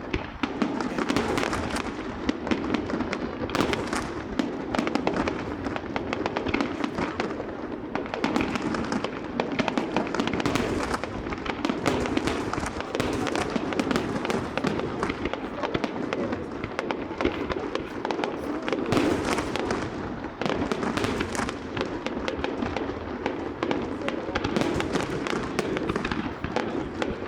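Fireworks display: a dense, unbroken stream of rapid bangs and crackles.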